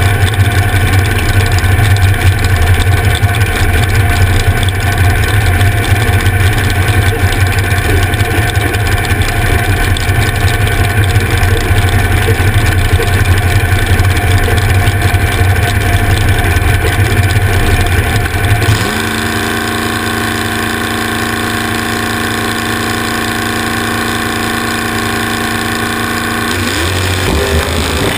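Front-engine dragster's engine idling loudly and roughly through open headers. About two-thirds of the way in it drops to a quieter, steadier idle, and near the end the revs begin to rise.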